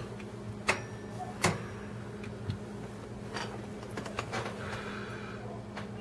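Buttons on a cell phone's keypad pressed by hand. There are two sharp clicks about a second apart near the start, then a few fainter ticks, over a steady low hum.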